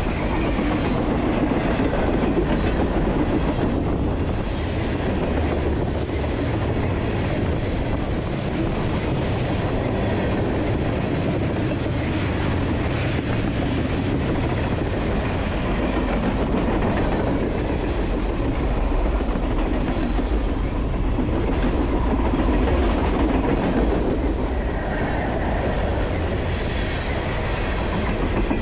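A mixed freight train of boxcars, coil cars and tank cars rolling past at close range, steel wheels running on the rails, steady in level.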